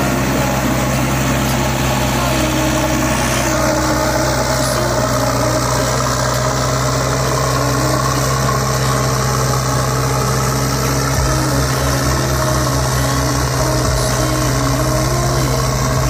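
Steady engine-idling sound of the kind played along with a remote-control toy loader, with a low tone that steps up and down over and over beneath it.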